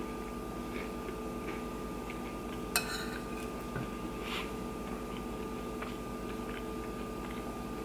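Metal fork scraping and clinking on a ceramic plate while scooping up corned beef hash. A sharp clink comes about three seconds in and a softer one a second and a half later, with faint ticks between. A steady low hum runs underneath.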